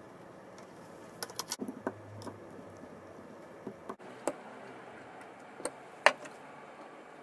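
Scattered small clicks and taps of parts of a Makita TD171D impact driver being handled during repair. There is a quick run of about four clicks a little over a second in, a few single clicks after, and the sharpest click about six seconds in.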